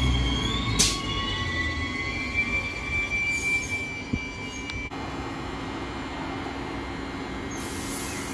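Queensland Rail SMU suburban electric train pulling into the platform and slowing to a stop. A low rumble fades over the first two seconds while thin high squealing tones glide and hold. A sharp click comes about a second in, and short bursts of hiss follow midway and near the end.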